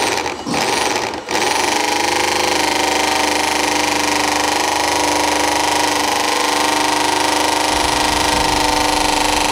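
Electric drill spinning a cut-open automotive air conditioner compressor's shaft, swash plate and pistons. Two short spin-ups, the second rising in pitch, then held at full speed in a steady whine.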